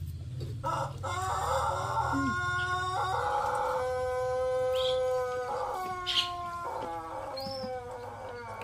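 Roosters crowing: several long, drawn-out crows one after another, overlapping, each holding a steady pitch and dropping at the end. A sharp clink about six seconds in.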